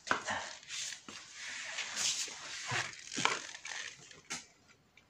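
Irregular rustling and scraping handling noise with a few sharp clicks, fading out near the end.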